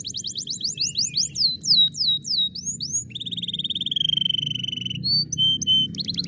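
Domestic canary singing a series of song tours: fast repeated high chips, then a run of downward-sliding notes, a steady rolling trill about three seconds in, and a few short whistled notes near the end. A faint low hum lies underneath.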